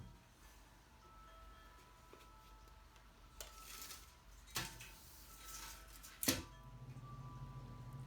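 Faint clinks and knocks of steel square tubing being handled, with three sharper knocks about three and a half, four and a half and six seconds in. A low steady hum sets in near the end.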